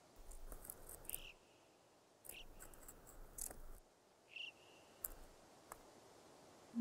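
Faint clicks and scrapes of an Alpine ibex's hooves on bare rock as it climbs down a cliff face, with two short bird chirps, one about a second in and one past the four-second mark.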